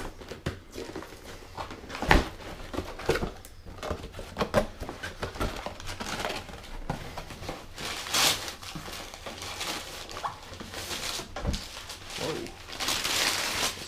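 Cardboard box and packaging being opened and handled: scattered knocks and taps, with bursts of scraping and crinkling, the longest about eight seconds in and again near the end.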